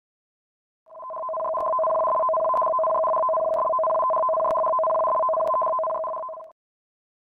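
Electronic alert tone for a tsunami warning: two steady tones sounded together, starting about a second in and held evenly for about five and a half seconds before cutting off. Faint ticks come about once a second.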